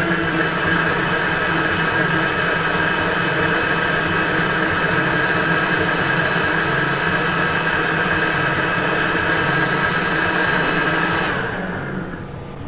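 Panasonic countertop blender running steadily while it blends peach, banana and mango into a smoothie: a motor hum with a high whine. It switches off near the end.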